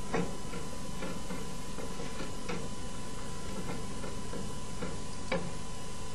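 Wooden spoon stirring a thick sauce in an aluminium pot, knocking against the pot's side in irregular light clicks. The loudest knocks come just after the start and about five seconds in, over a steady hiss and a thin constant tone.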